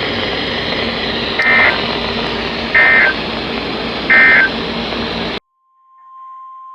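Emergency Alert System end-of-message signal: three short, identical bursts of warbling digital data tones, evenly spaced, over steady broadcast static hiss. The hiss cuts off suddenly about five seconds in, and a steady high single tone fades in near the end.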